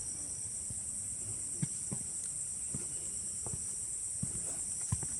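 Steady high-pitched insect chorus from the rainforest, with footsteps on a forest trail landing about every 0.7 seconds.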